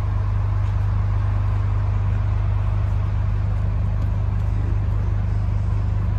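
Steady low hum of idling bus and truck engines, with a constant rush of traffic-like noise.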